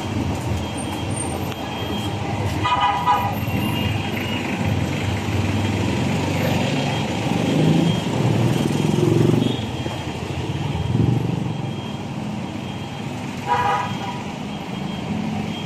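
Street traffic noise with a vehicle horn tooting twice: about three seconds in and again briefly near the end.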